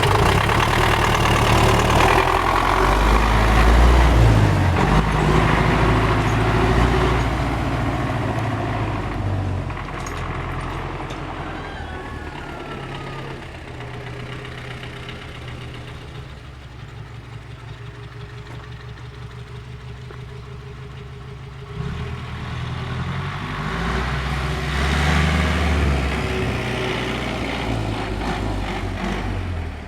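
MTZ tractor's diesel engine running, loud and revved at first, slowing to a quiet, evenly pulsing idle about halfway through, then picking up suddenly about 22 seconds in and revving again. The owner puts the engine's knock down to its fuel injection equipment.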